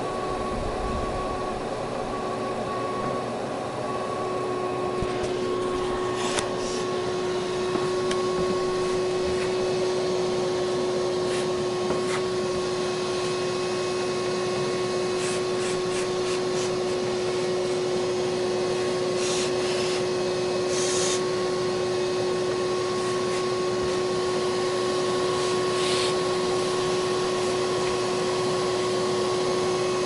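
Vacuum motor running steadily with a constant whine, used to suck bees out of a hive, getting a little louder about four seconds in. A few short sharp ticks and hisses come through it at irregular moments.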